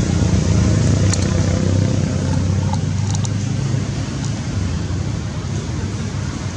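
Motor vehicle engine running with a steady low hum, easing off slightly over the last few seconds.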